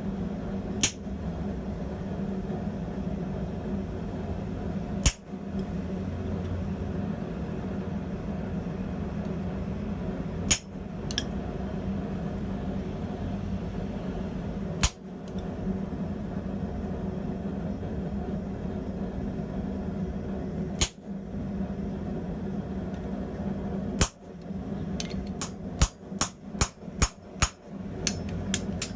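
Blacksmith's hammer striking steel on an anvil: single blows a few seconds apart, then a quick run of about nine blows near the end, over a steady hum.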